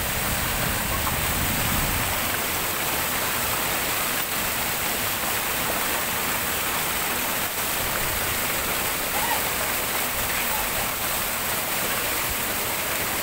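Water pouring over a stone ledge into a pool, a steady splashing rush that stays level throughout.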